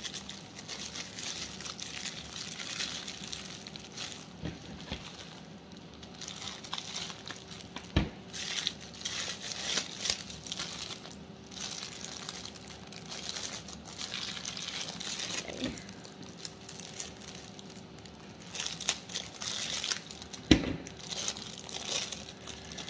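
Plastic packaging crinkling and rustling as it is handled and opened, with a couple of sharp knocks, one about eight seconds in and one near the end.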